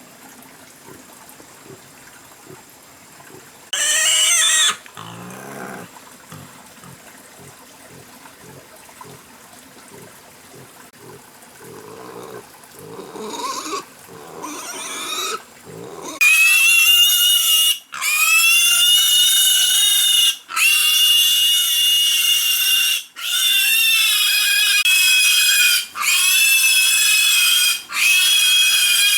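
Wild boar grunting quietly, with one short squeal about four seconds in; from about halfway it squeals loudly and shrilly, long squeals one after another with brief breaks.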